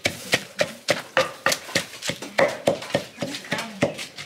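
Pestle pounding a spice paste of shallots and garlic in a mortar, steady knocks about three to four times a second, working the paste until it is fine.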